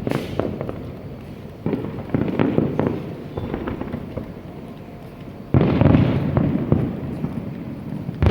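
Aerial fireworks shells bursting: a bang at the start, a run of crackling pops from about two to three seconds in, then a sudden heavy boom about five and a half seconds in followed by sustained rumbling.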